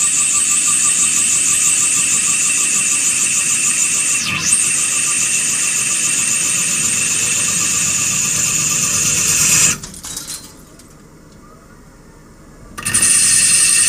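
CNC lathe tool squealing as it cuts stainless steel: a loud, steady, high-pitched whine with several tones and a fast wavering. It dips briefly in pitch about four seconds in, and near the end it drops away for about three seconds before starting again.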